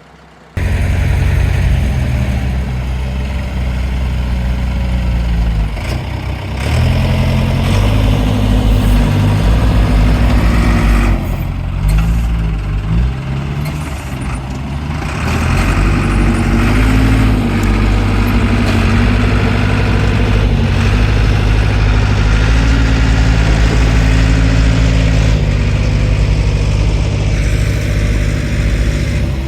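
Ford 555 backhoe's engine running under load, its speed rising and falling as it works, with a brief dip a little before halfway.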